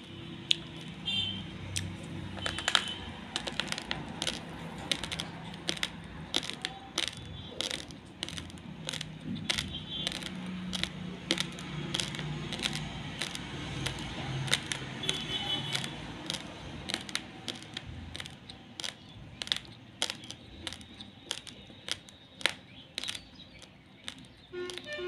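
Raw basmati rice grains crunched between the teeth: a dense run of sharp, irregular cracks, several a second, with chewing underneath.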